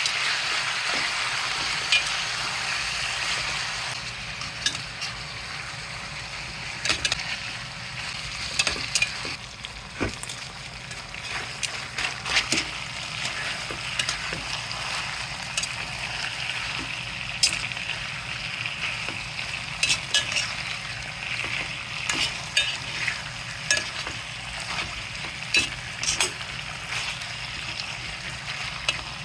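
Floured sliced meat frying in a pan with a steady sizzle. A utensil clicks and knocks against the pan as the meat is stirred and turned. The sizzle is loudest in the first few seconds, then settles a little lower.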